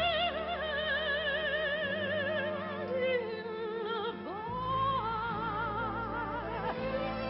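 Operatic soprano singing long held notes with a wide vibrato over orchestral accompaniment, with a sweeping upward slide about four seconds in.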